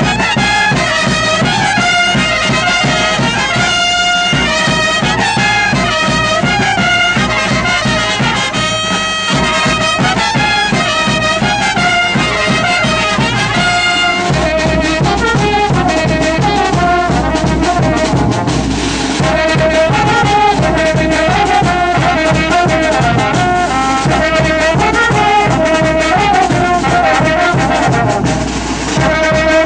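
Brass band playing a wititi dance tune: trumpets and trombones carry the melody over a steady drum beat. About halfway through, the bass and percussion grow heavier.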